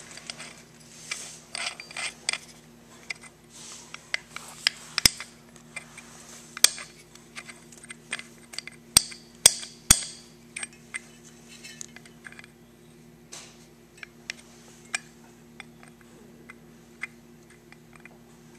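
Small metal clicks, taps and scrapes as carburetor parts are handled and a tight-fitting part is worked into its casting by hand. It goes in hard and won't slip down into place. A few sharp clicks stand out, and a steady low hum runs underneath.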